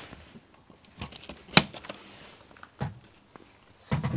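The latches on a campervan's external cassette-toilet hatch door are released and the hatch door is opened. There are a few clicks and knocks, the sharpest about a second and a half in, and more knocks near the end.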